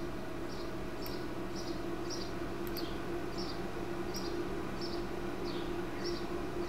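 A short high chirp repeats about twice a second over a steady low hum, with a few sharp clicks of a computer mouse.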